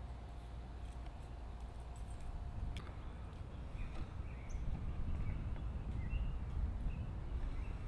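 Faint bird chirps over a low, steady outdoor rumble, with a single sharp click about three seconds in.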